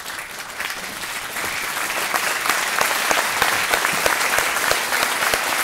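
An audience applauding: many hands clapping, swelling over the first two seconds and then steady.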